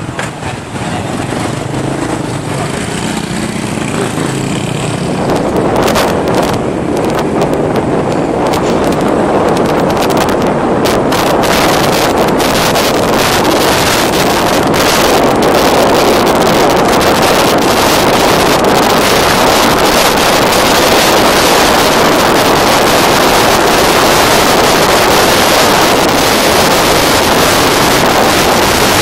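Wind buffeting the microphone over the running engine of a motorbike pulling away and riding through traffic. The rushing builds over the first five seconds or so, then stays loud and steady.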